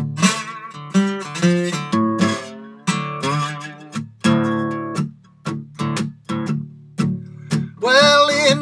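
Acoustic guitar played bottleneck-slide style in delta blues fashion: plucked notes, some gliding in pitch, over steady bass notes. A man's singing voice comes in near the end.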